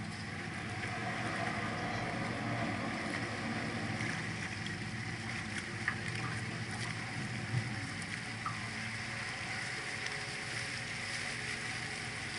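Canal tour boat's engine running steadily, a low hum under the wash of water and wind noise at the bow, with a few short knocks in the middle.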